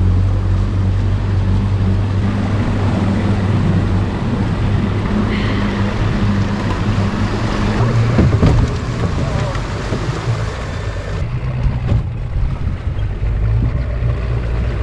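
Motorboat engine running under wind and water noise. About eight seconds in comes a louder knock and scrape as the hull hits the river bottom in shallow water.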